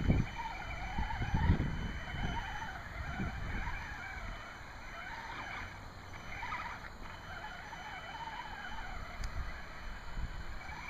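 Traxxas Summit electric RC truck's motor and gearbox whining, the pitch wavering up and down with the throttle as it crawls through shallow creek water. Low rumbles near the start.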